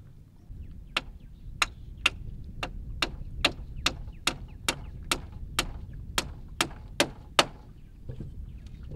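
Repeated sharp strikes of a small hatchet-like hand tool on a joint of a wooden pole frame: about fifteen blows, a little over two a second, starting about a second in and stopping near the end.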